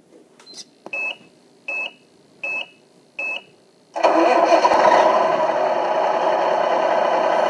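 Four short high beeps about three-quarters of a second apart, then about four seconds in a loud, steady engine sound starts up from the RC King Hauler tractor truck and keeps running.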